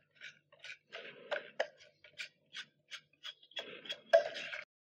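Spatula scraping cake batter out of a mixing bowl into a cake tin: a run of irregular light clicks and taps, with two longer scraping stretches, one about a second in and one near the end.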